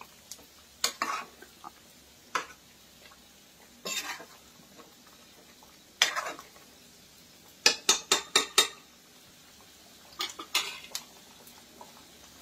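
Spatula scraping and clinking against a stainless steel kadai while stirring thick potato korma gravy. The strokes come in scattered ones and twos, with a quick run of about six a little past the middle.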